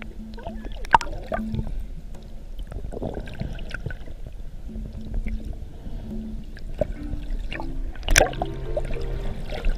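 Water heard underwater through a camera housing: a steady swishing and gurgling wash with bubbles, and two sharp knocks, about a second in and just past eight seconds. Short low steady hums come and go.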